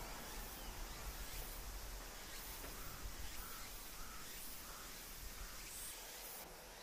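A crow cawing: a run of short caws, about two a second, starting a little before the middle, over a steady background hiss.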